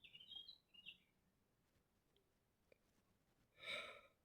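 A small bird chirping faintly, a quick run of short high notes in the first second, against near silence. A brief soft noise follows near the end.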